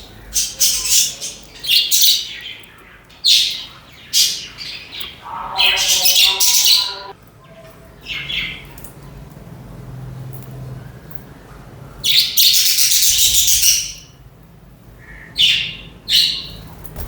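A flock of budgerigars chirping and squawking in irregular bursts, some a second or two long, with quieter gaps between.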